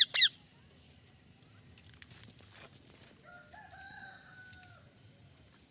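Rose-ringed (ring-necked) parakeet giving sharp screeches that fall in pitch at the very start. About three seconds in, a rooster crows faintly, one held call of about a second and a half that drops at the end.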